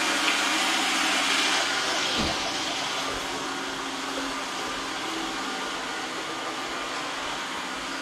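iRobot Roomba S9+ robot vacuum running on its way back to its dock, a steady motor whir with a low hum that grows gradually quieter. A soft thump about two seconds in.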